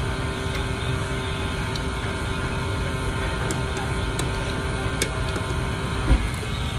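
Steady hum and hiss of food-court background noise, with a few faint clicks as a spoon and fork work a plate, and one short low thump about six seconds in.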